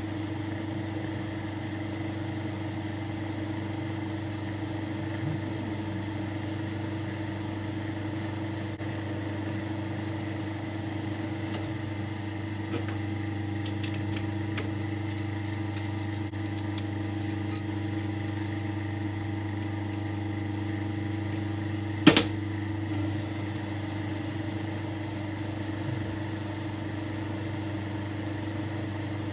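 South Bend lathe running steadily under power while cutting a thread on a small screw, its motor and drive giving a constant low hum. Light ticks come in the middle, and a single sharp click comes about 22 seconds in.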